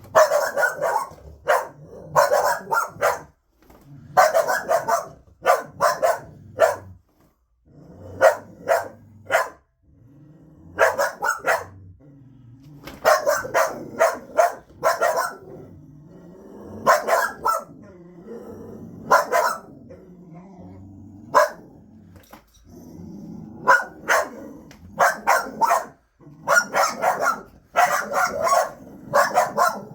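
Dogs barking at a vacuum cleaner in repeated quick runs of several barks, with low growling in the gaps between runs.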